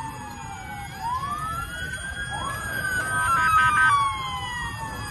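Several emergency-vehicle sirens wailing at once, their pitches rising and falling and overlapping. A choppy, rapidly stepping siren tone is loudest a little past halfway. A low rumbling noise runs underneath.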